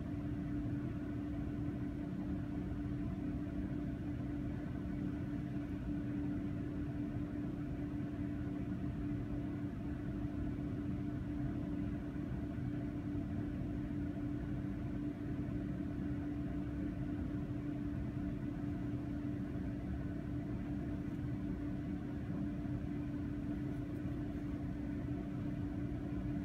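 Steady background hum: one constant low tone over a faint even rumble, unchanging throughout, with no distinct events.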